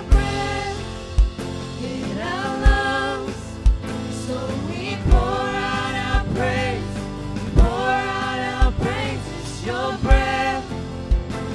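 Live worship band playing a song: singers over electric guitar and bass guitar, with a low beat about once a second.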